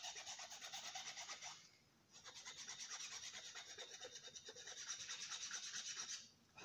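A hand file rasping back and forth in quick, even strokes across the edges of a brake pad, chamfering them so the pads won't squeal. It pauses briefly about two seconds in, then carries on until near the end.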